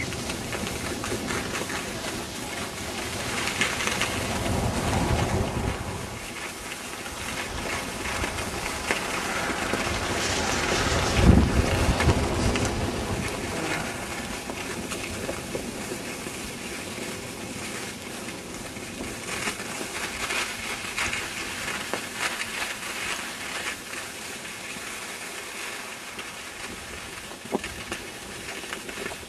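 Wind buffeting the microphone, a steady rushing noise that swells around four to six seconds in and again, loudest, at about eleven seconds.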